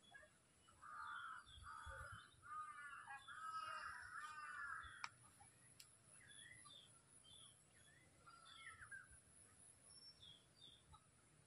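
A crow cawing repeatedly in a run of harsh calls over the first few seconds, with small birds chirping faintly throughout. There is a single sharp tick about five seconds in.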